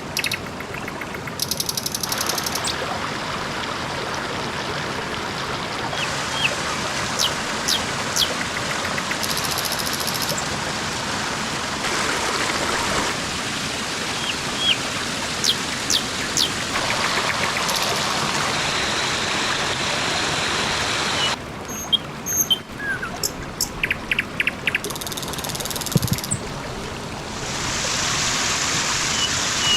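Forest ambience: a steady rushing, water-like noise with small birds chirping over it, changing abruptly at several cuts. A run of sharp clicks comes about three-quarters of the way in.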